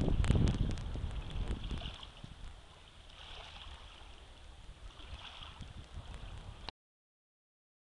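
Wind buffeting the microphone as a low rumble, strongest in the first two seconds and then easing off to a faint outdoor hush. The sound cuts out to dead silence about two-thirds of the way through.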